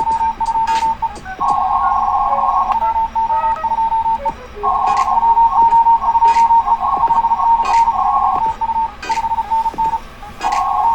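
Morse code (CW) tone near 1 kHz keyed on and off in dots and dashes from a shortwave transceiver on the 40-metre band. It sits over a band of receiver noise that switches on and off in blocks of a second or more, with scattered sharp clicks.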